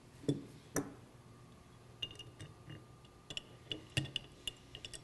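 Steel wrenches clinking against the metal nut and shaft of a valve drive mechanism as the top nut is retightened. Two knocks in the first second, then a run of light, ringing metallic ticks.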